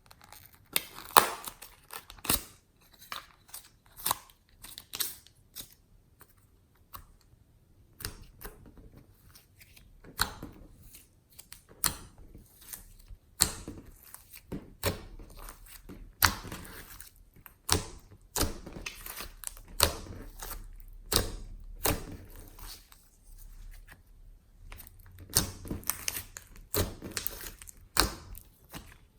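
Glossy slime with clay mixed in being kneaded and pressed by hand: an uneven run of sticky clicks and snaps.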